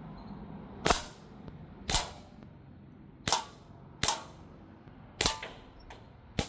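Crosman M1 BB rifle firing six single shots, roughly a second apart, each a sharp crack.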